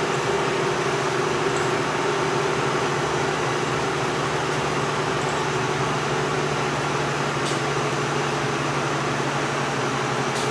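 City bus heard from inside the cabin: a steady engine hum with road and ventilation noise, and two faint clicks near the end.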